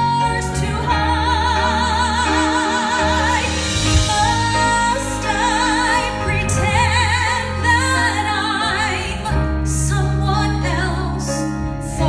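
Female vocalist singing a slow ballad live, holding long notes with wide vibrato, over piano and band accompaniment.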